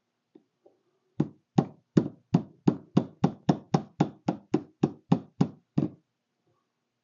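A hammer tapping in a quick, even series, about sixteen strikes at roughly three a second, bending the ignition switch housing's outer metal edge back over its white insert to close the switch up. The tapping starts about a second in and stops shortly before the end.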